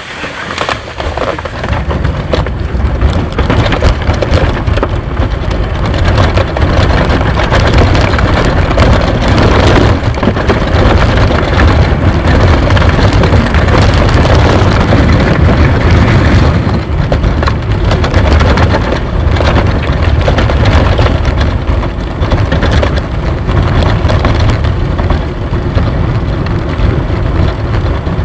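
A gravity-powered soapbox cart rolling at speed, with the continuous rumble and rattle of its wheels on the track and wind buffeting its onboard microphone. The noise builds over the first couple of seconds, then stays loud and steady.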